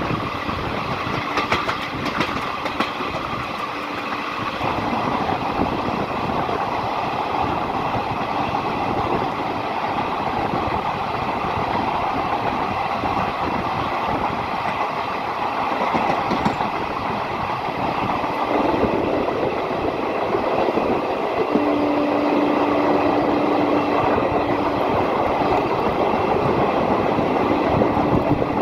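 Passenger train running along the track, heard from an open coach window: a steady rumble of wheels on the rails with rushing air and some wheel clatter. A steady tone comes and goes in the last third.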